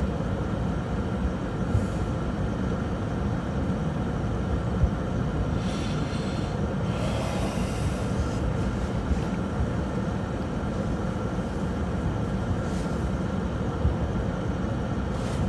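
Steady low rumbling noise without speech, like the running noise of a moving vehicle.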